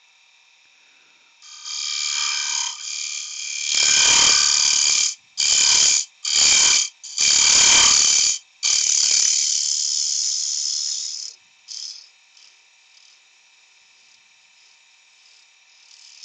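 Wood lathe with a gouge cutting the face of a spinning wooden box lid: a loud, high-pitched scraping hiss that comes in several passes with short breaks, starting a second or two in and stopping about two-thirds of the way through. After that only the lathe's faint steady hum.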